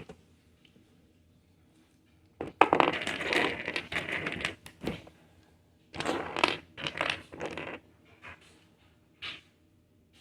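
Loose plastic Lego pieces clattering as they are rummaged through, in two busy bursts of about two seconds each, followed by a few single clicks.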